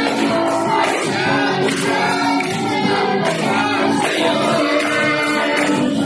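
Congregation singing a praise and worship song with a band, voices holding long notes over the accompaniment.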